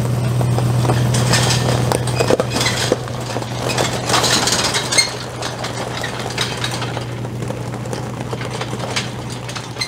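Jeep Grand Cherokee engine running steadily as it tows an empty flatbed utility trailer over gravel, with the trailer's metal frame and hitch clinking and rattling over the bumps. The rattling is busiest in the first half and eases as the vehicle pulls away.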